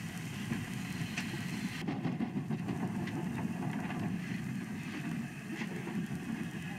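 Steam train rolling slowly past: a steady low rumble with a few faint clicks, broken briefly about two seconds in.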